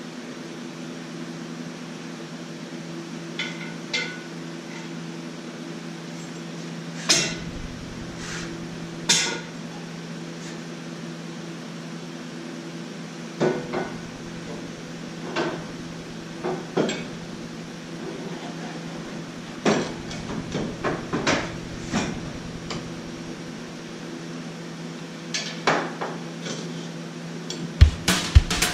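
Scattered sharp metal clanks and taps, about a dozen spread irregularly: steel parts and tools being handled while a subframe connector plate is fitted. A steady low hum runs underneath.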